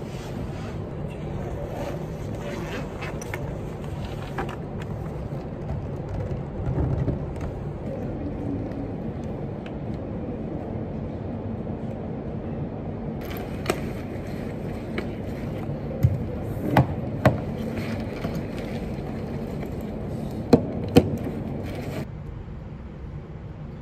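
Steady room hum with the rustle and handling of bags and gear on a wooden table, and a few sharp knocks and clicks as things are set down: three close together about two-thirds of the way in and two more near the end.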